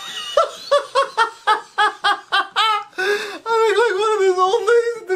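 A person laughing hard: a run of quick, rhythmic bursts, then a long, high, wavering laugh near the end.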